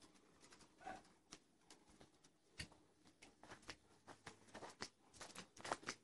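Faint footsteps scuffing on dry dirt and straw: a scatter of soft clicks and crunches that grows busier in the second half.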